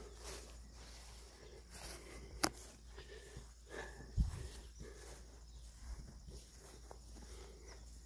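Quiet pasture ambience with faint rustling, a single sharp click about two and a half seconds in and a short low thump about four seconds in.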